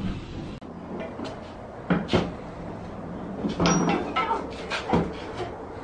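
Table football being played: a run of sharp, irregular knocks and clacks from the ball and the rod figures striking each other and the table. A steady rush of car-wash spray cuts off about half a second in.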